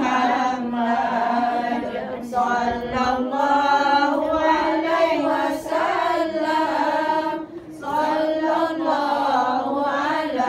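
A group of women singing Arabic salawat (devotional praise of the Prophet) together, unaccompanied, in a slow chanted melody, with a brief breath-pause about three-quarters of the way through.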